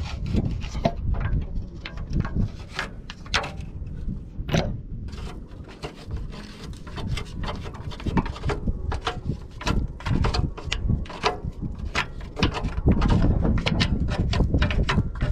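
A wooden stick scraping and knocking against a pickup's metal underbody as dry grass lodged there is raked out, in a string of irregular scratches and clicks.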